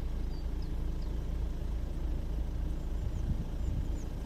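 Car engine running with a steady low rumble, and a few faint, short bird chirps above it.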